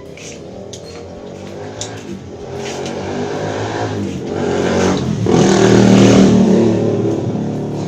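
A motor vehicle engine passing by: it grows steadily louder to a peak about six seconds in, then fades.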